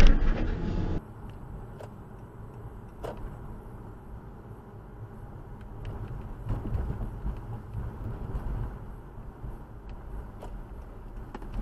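A short loud noise right at the start, then a cut to the low, steady rumble of road and engine noise inside a moving car, picked up by a dashcam, with a few faint clicks and knocks.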